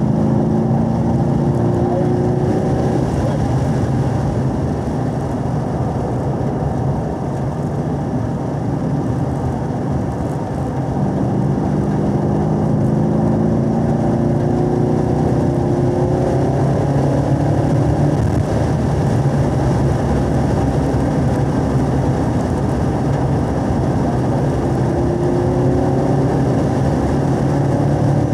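2017 Camaro SS 1LE's 6.2-litre V8 under track driving. Its note rises in pitch several times as the car accelerates, eases off briefly about a third of the way in, and climbs again toward the end.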